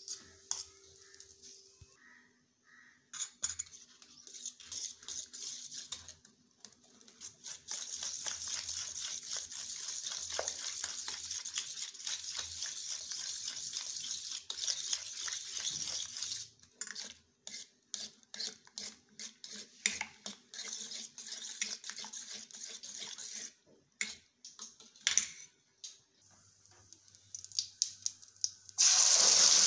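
A fork beating eggs with chopped onion and spices in a steel bowl: rapid scraping and clinking against the metal, stopping and starting a few times. Near the end, a sudden loud sizzle as the egg mixture is poured into hot oil with cumin seeds.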